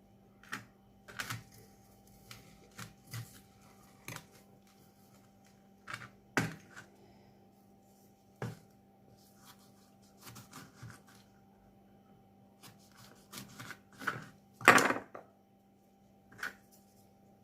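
Scattered clicks and knocks of salted lemons being handled and packed into a glass jar, at irregular intervals, with the loudest cluster near the end.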